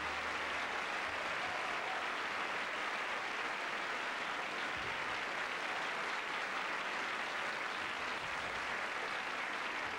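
Audience applauding, a steady dense clapping that holds an even level, with the band's last held notes dying away in the first instant.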